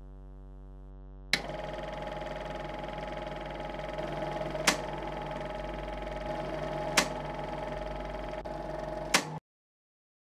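A steady electronic buzzing drone over a low hum. About a second in, a sharp click switches it to a louder, denser droning chord, and three more sharp clicks follow about two seconds apart. It all cuts off abruptly about a second before the end.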